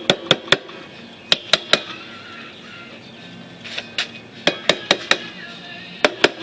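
About a dozen sharp hammer blows on steel, in quick runs of two to four, with metallic ringing.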